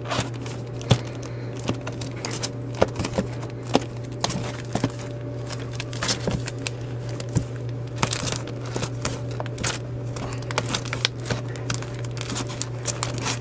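Plastic comic-book bags crinkling as fingers flip quickly through bagged-and-boarded comics packed in a cardboard box: a continuous run of short rustles and clicks.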